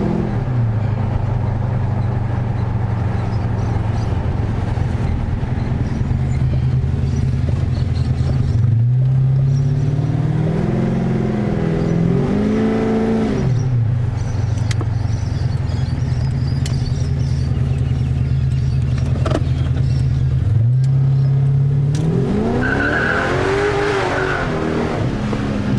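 Holden R8 Clubsport's 5.7-litre LS1 V8, fitted with a new Comp Cams camshaft, idling and revved up and back down twice, about nine seconds in and again about twenty seconds in. The revs pick up cleanly with no flat spot.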